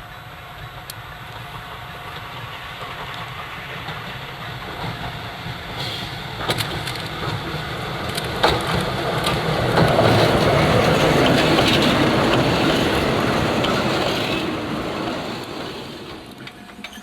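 Electric train on the Meitetsu Tanigumi Line passing on the track. Its rumble and wheel noise grow steadily louder to a peak about two-thirds of the way through, then fade, with a few sharp clicks from the wheels over the rails along the way.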